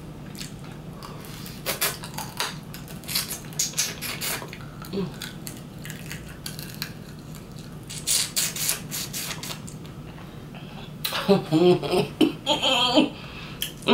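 Close-up chewing on a curry turkey wing bone: scattered short, wet crunches and smacks. About eleven seconds in comes a closed-mouth hummed 'mmm' of enjoyment that glides up and down in pitch.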